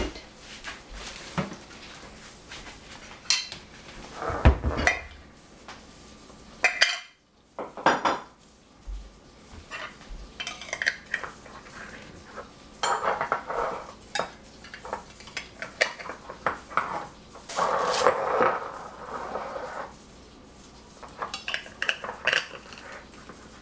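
Glass jars clinking and knocking on a tiled counter as metal screw lids are set on and twisted shut, with irregular clicks and stretches of scraping.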